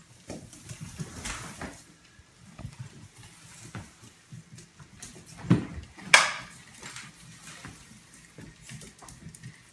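Broom head scraping and knocking across a tile floor while a small puppy pounces on it, with irregular small scrapes and clicks. Two louder sharp sounds come about five and a half and six seconds in.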